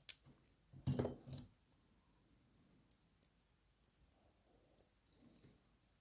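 Faint, sparse small clicks and taps of metal lock parts being handled: the brass plug of a BKS padlock worked with a pick and set on a plastic pinning tray. A louder bit of handling noise comes about a second in.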